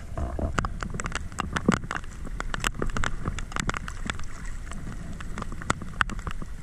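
Water moving around a GoPro in its waterproof housing as a diver moves through the water: a low rumble with many sharp, irregular crackling clicks.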